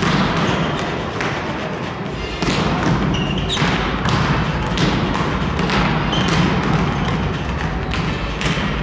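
Arena PA music playing in a large sports hall, with many sharp thumps and claps through it and a few brief high squeaks.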